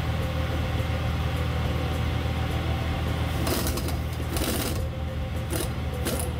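Pneumatic impact nut driver running flat out on a seized left-hand-threaded nut of a Moto Morini Corsarino 48cc four-stroke engine: a continuous, rapid mechanical rattle, harsher and hissier in patches around the middle.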